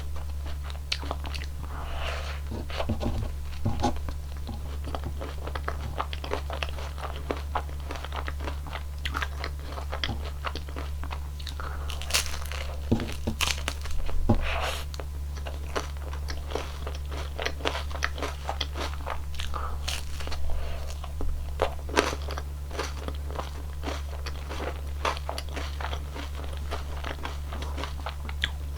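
Close-miked crunching, biting and chewing of cone ice cream, the crisp wafer cone cracking in irregular bites with the loudest crunches in the middle. A steady low hum runs underneath.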